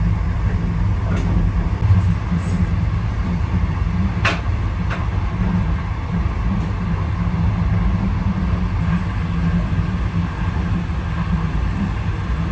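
Steady low rumble of a moving vehicle, with a few light clicks.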